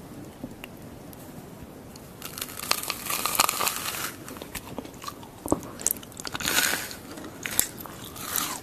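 A person biting into a crunchy gold-leaf-covered treat close to the microphone. After about two seconds of quiet comes a run of loud crunching with sharp crackles, then scattered clicks and another crunch about two-thirds of the way through.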